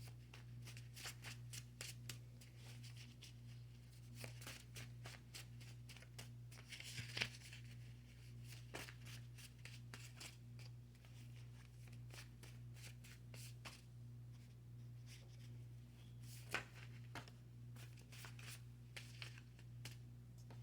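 Tarot cards being shuffled and handled, a quick run of soft card clicks and flicks, with a sharper snap about 7 seconds in and again near 16 seconds. A steady low hum lies underneath.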